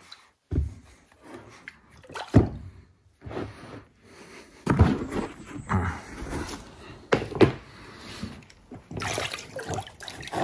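Liquid sloshing and splashing in a plastic tub of Evapo-Rust rust-remover bath as chunks of steel railroad track are set into it and, later, lifted back out dripping. The splashes come irregularly.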